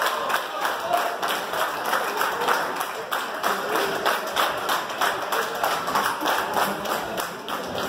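Crowd clapping together in a steady rhythm, about four claps a second.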